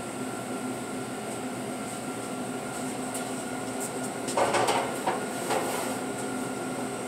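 Steady hum of commercial bakery equipment and fans around a rack oven. About four seconds in, a second or so of metal clattering as the bundt pan is set back onto the rack inside the open oven.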